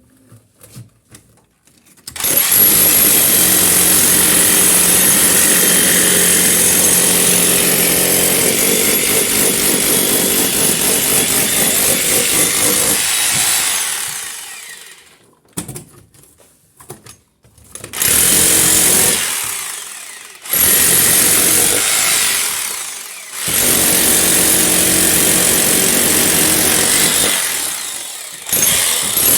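Electric hammer drill breaking into a masonry wall, loud: one long run of about eleven seconds starting about two seconds in, then a pause with a few knocks, then four shorter runs of a few seconds each with brief stops between them.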